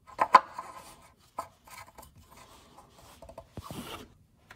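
Oil filler cap being screwed back onto a Honda Fit's engine by hand: two sharp clicks near the start, another click a second later, then light rubbing and scraping as the cap is turned down, with a short rustle near the end.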